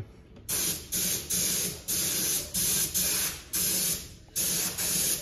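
Repeated bursts of hissing spray in a steady rhythm: about eight, each roughly half a second long, with short gaps between.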